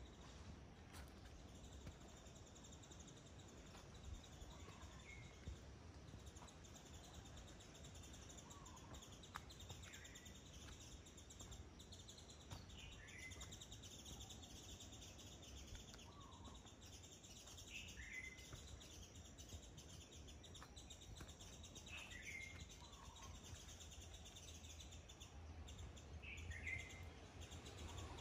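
Faint bird calls: a short chirped phrase, a lower note then a higher, falling one, repeated about every four seconds over a faint steady outdoor hiss.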